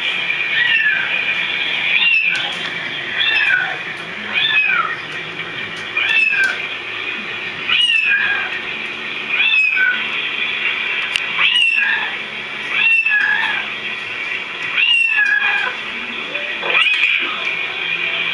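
Cats meowing over and over, one call about every one and a half seconds, each rising then falling in pitch, over a steady high hiss.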